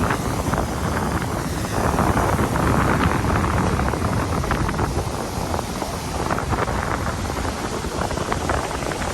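Wind buffeting the microphone: a rough, steady rush, a little stronger about two to three seconds in.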